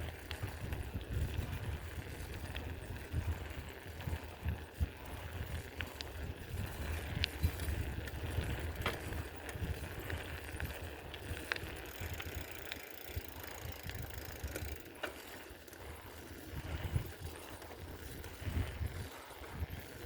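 Bicycle ride: a low, fluttering rumble, with scattered clicks and rattles from the bike.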